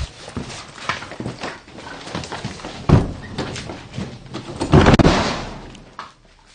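A string of knocks and thumps, then a loud hissing rush, the "쌰아아아" sound, about five seconds in that fades away over about a second.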